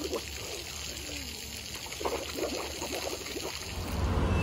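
Swimming-pool water lapping and splashing as people move about in it. Near the end it gives way to a louder, low rumble of road traffic.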